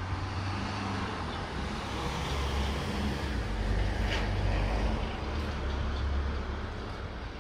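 A passing motor vehicle: a low rumble that swells to its loudest a little past the middle, then eases off.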